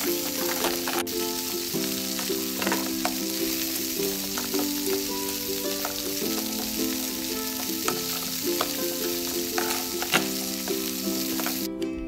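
Sizzling frying sound effect over a toy pan, with a light plucked tune underneath and scattered clicks of plastic utensils against the plastic pan. The sizzle cuts off suddenly near the end.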